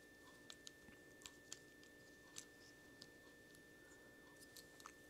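Faint, scattered small clicks and taps of plastic and metal toy parts as the add-on wing pieces are snapped onto a G1 Transformers Rumble cassette figure.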